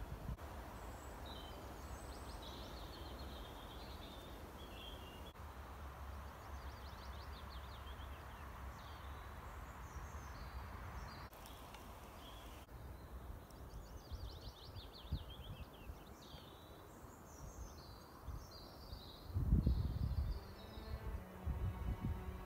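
Woodland ambience: small songbirds calling and singing, including rapid trills, over a steady background hiss of wind and outdoor noise. A few low thumps come near the end.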